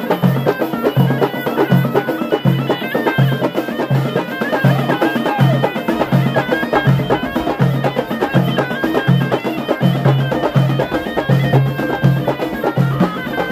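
Ghaita, the Moroccan double-reed shawm, playing a stepping, nasal melody over a steady beat of frame drums and a tbel barrel drum: traditional Amazigh folk music.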